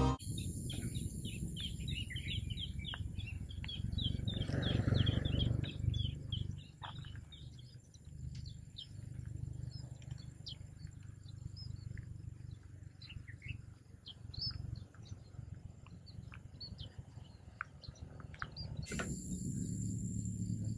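Outdoor ambience of many small birds chirping and twittering, over a steady high-pitched hum and a low rumble that swells for a couple of seconds about four seconds in.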